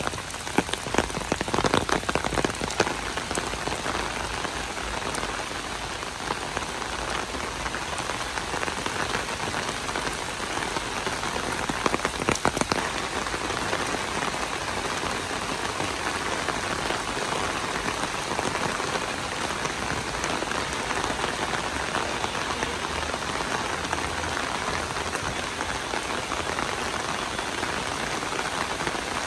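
Steady rain falling on paved paths, grass and foliage, an even hiss of drops, with a few sharper drop hits in the first three seconds and again about twelve seconds in.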